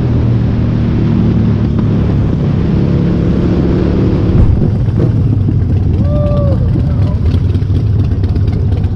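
A motor vehicle's engine running steadily while under way, with a rushing noise over it. A short rising-and-falling vocal sound comes about six seconds in.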